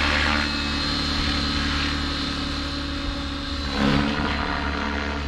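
Align T-Rex 650X electric RC helicopter in flight: rotor and motor running steadily with a thin high whine, the sound shifting and swelling briefly about four seconds in.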